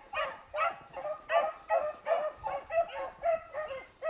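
A pack of beagles baying while running a rabbit's trail: repeated, overlapping bays from several hounds, about three a second.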